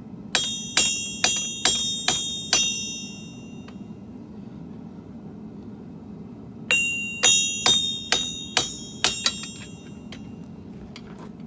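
Hammer blows on hot steel at an anvil, each strike ringing: a run of about six strikes, a pause of about four seconds, then a second run of about eight. A steady low hum runs underneath.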